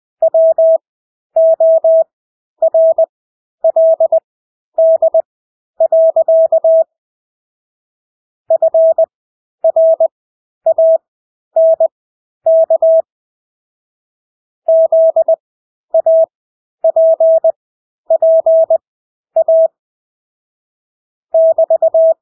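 Morse code sent as beeps of a single steady pitch at 20 words per minute with Farnsworth spacing: quick dits and dahs run together within each character, with stretched gaps between characters and longer pauses of about two seconds between words.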